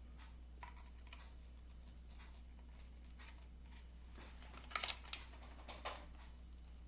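Faint clicks and scrapes of hard plastic toy parts being handled as a small gun piece is worked into its socket on an action-figure horse. There is a louder cluster of clicks about five seconds in, over a steady low hum.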